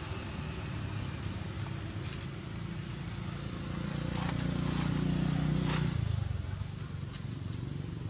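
A low motor rumble that swells a few seconds in and eases back, with scattered crackles of dry leaves as monkeys shift on the leaf litter.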